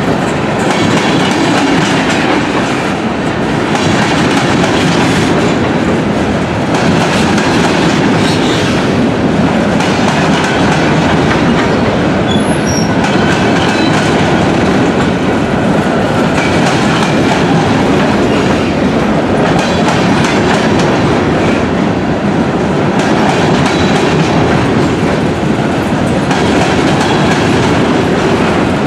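Freight cars rolling past on the rails: a loud, steady rumble with the clickety-clack of the wheels.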